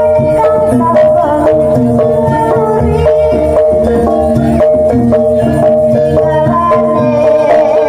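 Jaranan dance accompaniment music: a wavering melody over a held tone, with steady drum strokes and other percussion.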